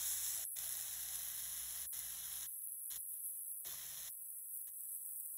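Beef roast searing in hot vegetable oil in a stainless pan: a steady sizzle that cuts out briefly several times and goes fainter after about four seconds.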